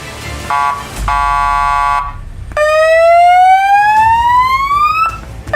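Electronic police-style siren: a short beep, a steady tone for about a second, then a long wail rising in pitch that cuts off suddenly, with a brief tone again near the end.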